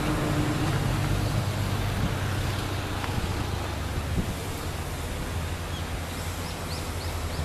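Outdoor ambience with a steady low hum, like an engine or motor running at a distance, under a haze of wind noise; a few faint high chirps near the end.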